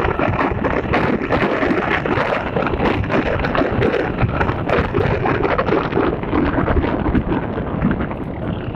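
Loud, rough rumbling and rustling noise on a phone's microphone, with many fine crackles and no clear tone, typical of wind buffeting the microphone or the phone being rubbed against cloth.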